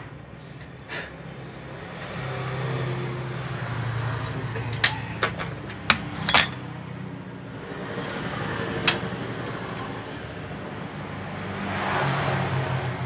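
Road traffic rumbling in the background, swelling twice as vehicles pass. A quick run of sharp metal clinks comes about five to six and a half seconds in, with one more near nine seconds, from tools and shock-absorber parts being handled at a bench vise.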